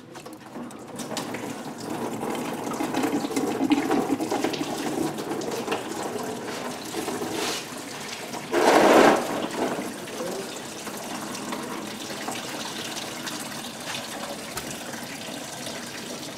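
Antifreeze gushing out of a disconnected thermostat-housing hose and splashing into a drain pan as the engine's cooling system is drained. It starts about a second in, flows steadily, and has one louder surge about nine seconds in.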